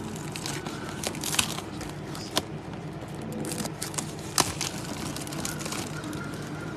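Plastic wrap on a trading-card hobby box crinkling and crackling as hands turn and unwrap the box. A few sharp crackles stand out over a steady low background hum.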